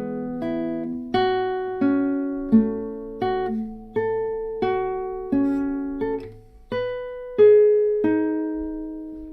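Guitar playing a slow passage of single plucked notes and small chords, about one every 0.7 s, each ringing on and fading. It is a demonstration of two bars of the piece, and the last note is left to ring near the end.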